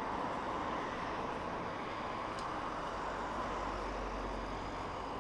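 Road traffic: cars driving past on the street, with a low rumble coming up about three seconds in as one goes by.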